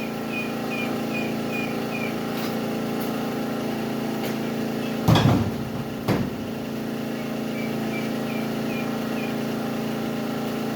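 Portable generator running steadily with an even hum. Two sharp knocks come about five and six seconds in, and a short high chirp repeats a few times a second early on and again near the end.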